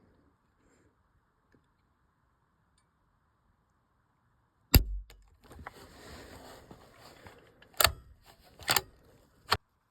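Rifle handling after a misfire. About five seconds in comes one sharp loud snap, then rustling and three metallic clacks as the action is worked.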